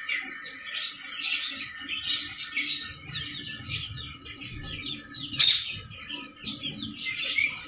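Baby chicks and ducklings peeping: a steady stream of short, high chirps, with one sharp click about five and a half seconds in.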